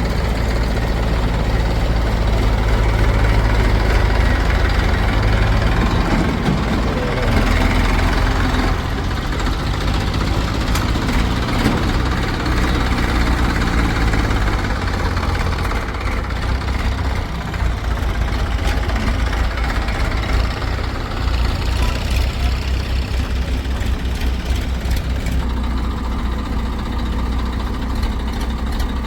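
Diesel engines of a backhoe loader and farm tractors running steadily, with the revs rising and falling partway through as the machine works.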